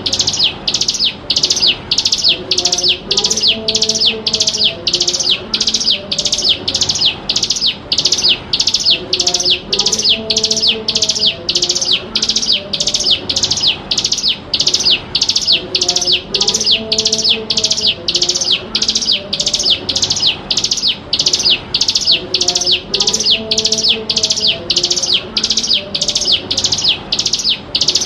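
Bar-winged prinia (ciblek gunung) calling in a continuous run of sharp, high chirps, about two a second and very even in pace.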